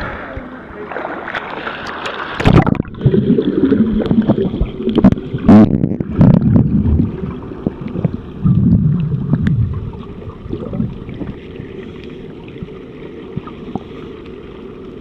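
Sea water slapping and splashing around a camera at the surface, then, about two and a half seconds in, the camera goes under and the sound turns muffled and dull: irregular underwater gurgling and bubbling with a few knocks against the housing.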